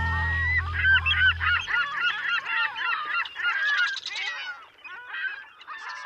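A flock of birds calling, many short overlapping calls at once, thinning out near the end. A low held chord of music fades out under them in the first second and a half.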